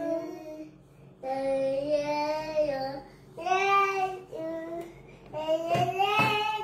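A toddler singing in a high voice, holding four long notes with short breaks between them. There are a couple of sharp knocks near the end.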